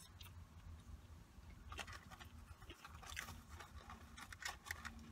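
Faint chewing and small mouth clicks of someone eating fast food, a few soft crunches scattered through, over a low steady background rumble.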